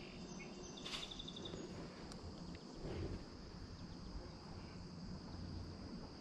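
Steady high-pitched drone of insects in the riverside vegetation, with a short high chirp about a second in.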